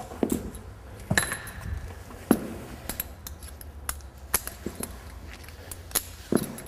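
Metal snap hooks at the ends of a resistance tube clinking and rattling as the handles are unclipped and fabric straps clipped on, with about half a dozen separate clicks and small knocks.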